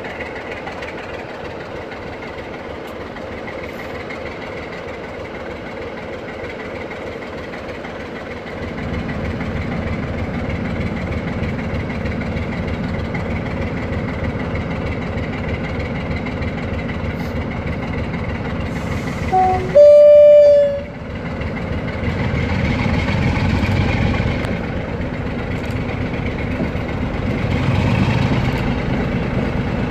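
British Rail Class 47 diesel locomotive's Sulzer twelve-cylinder engine running at a standstill, growing louder about a third of the way in. About two-thirds through, a brief, very loud horn blast sounds, and afterwards the engine revs up twice as power is taken for departure.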